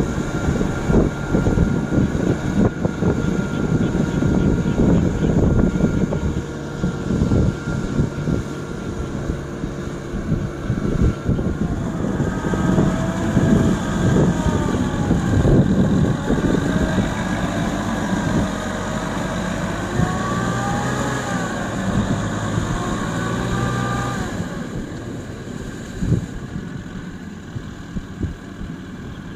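Kubota M6040SU tractor's four-cylinder diesel engine running under load while its rear rotary tiller churns wet paddy mud, with many short knocks in the mix. A wavering tone rises and falls through the middle, and the sound eases off near the end.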